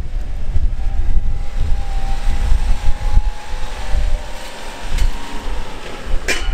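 Honda Acty 660 kei truck's small three-cylinder engine running as the truck moves off at low speed, with heavy wind buffeting on the microphone. A short hiss about six seconds in.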